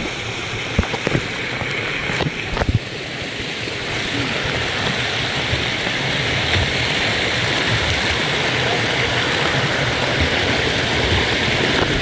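Rushing water of a jungle cascade pouring over rock into a pool, a steady rush that grows louder a few seconds in. A few sharp knocks sound in the first three seconds.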